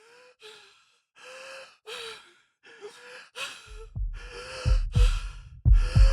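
A person's laboured, wheezing breaths in quick in-and-out pairs, each with a thin whistling note, as in an asthma attack. About four seconds in, a low heartbeat thump joins, beating in double beats about once a second.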